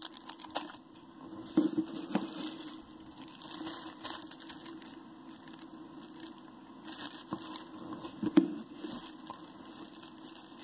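Trading-card product packaging being handled: crinkling rustles of wrapping with scattered light knocks, the sharpest about a second and a half in, again around two seconds, and near eight seconds.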